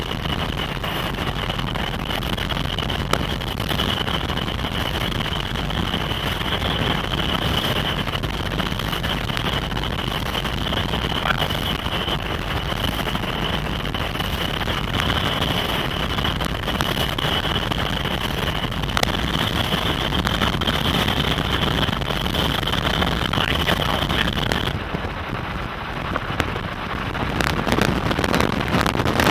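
Road and wind noise inside a moving vehicle, a steady rushing hiss. A steady high whine runs along with it and cuts off about 25 seconds in.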